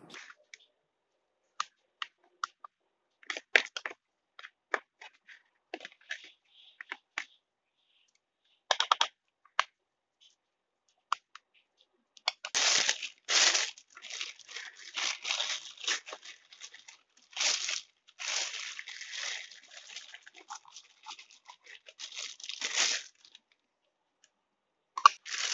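A metal spoon scraping and tapping against a plastic measuring cup and tub in scattered light clicks. About halfway through, a thin plastic bag starts crinkling and rustling as the cup is emptied into it, and goes on for about ten seconds.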